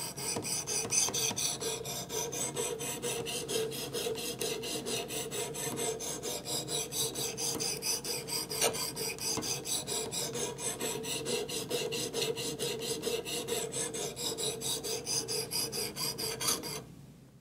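Coarse abrasive of a Work Sharp Professional Precision Adjust knife sharpener rasping back and forth along a clamped knife blade in quick, even strokes. The strokes stop near the end. The edge is being ground to raise a burr on its first side.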